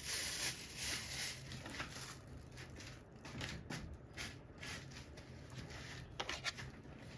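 Fresh apple crunching in short crisp bursts, with a few light clicks in between.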